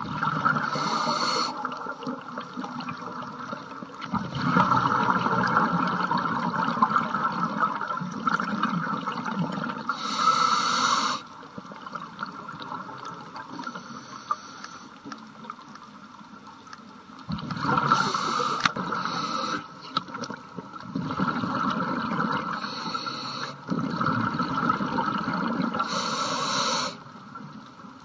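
Scuba diver's exhaled bubbles from the regulator, bubbling in four long bursts of several seconds each with quieter pauses between them for breathing in.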